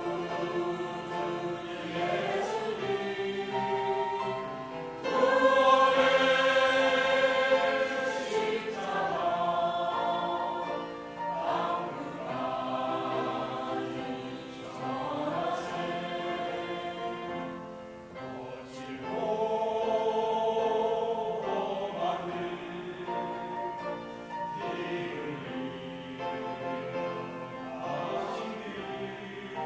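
A choir singing a Christian praise song in several voices, holding long notes, with the loudest swell a few seconds in.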